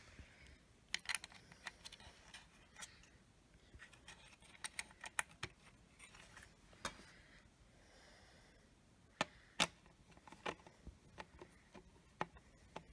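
Scattered small clicks and taps of hand and screwdriver work on an opened EST Genesis ceiling speaker strobe, its plastic housing and metal speaker frame being handled, with two sharper clicks about nine and a half seconds in.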